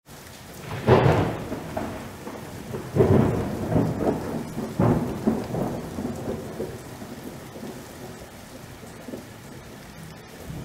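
Thunderstorm: steady rain with three loud claps of thunder, about a second in, at three seconds and just before five seconds, each rolling off into a low rumble, the storm dying away toward the end.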